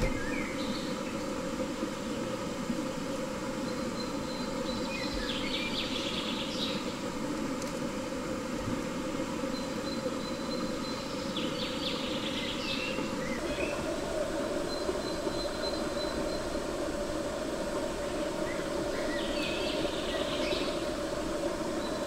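Steady rushing of stream water, shifting slightly about halfway through, with a high chirping call of a few rapid notes repeating about every six to seven seconds above it.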